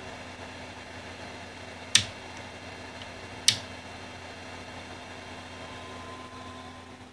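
Small toggle switches on a 3D printer's base flipped by hand: two sharp clicks about a second and a half apart, over a steady hum.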